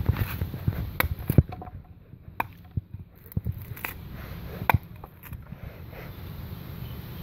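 A knife blade chopping and prying at the bark of a tree trunk: a handful of sharp, irregularly spaced knocks, with scraping of bark between them.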